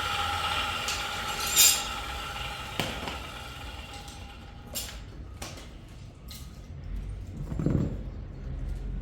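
A steady hum fades out over the first few seconds, then scattered metallic clinks and knocks from tools and parts being handled.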